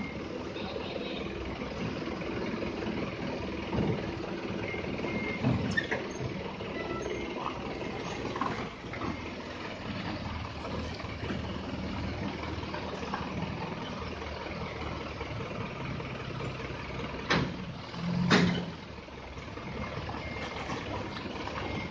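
Toyota forklift's engine running as it manoeuvres, with short high beeps of its reversing alarm now and then. Near the end come two loud, sharp metal bangs about a second apart.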